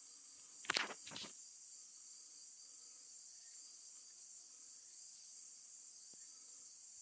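A steady high-pitched chorus of insects, likely crickets, shrilling without a break. About a second in there are two brief, louder scuffs, like handling or rustling close to the microphone.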